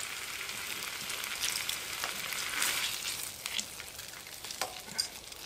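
Ribeye steak and diced potatoes sizzling in butter in a frying pan, a steady hiss with scattered sharp crackles.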